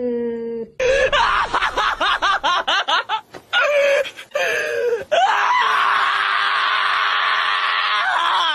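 Dog screaming while being restrained for a vet examination: a quick string of high screams, each rising and falling in pitch, then one long sustained scream that cuts off suddenly near the end.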